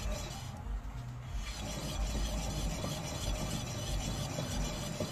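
Rustling, rubbing noise from a worn car suspension component as it is worked, picked up with the microphone held close; it settles into a steady rustle about a second and a half in.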